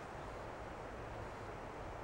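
Steady, even background hiss of outdoor ambience with no distinct sounds.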